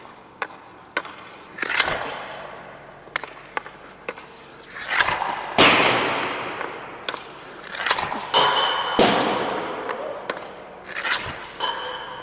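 About four slapshots with a Bauer Hyperlite 2 hockey stick: sharp cracks of the blade striking ice and puck, each followed by a loud clatter of the puck hitting at the far end that echoes through the rink.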